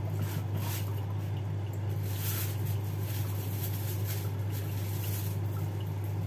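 A steady low hum, with faint light ticks of a knife on a cutting board and rustling of a plastic bag over it.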